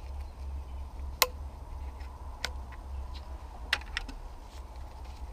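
A few sharp metallic clicks from pliers and a hose clamp, as a coolant hose is worked loose in a VW Golf Mk4 engine bay, over a low steady rumble. There are single clicks about a second and two and a half seconds in, and a quick pair near four seconds.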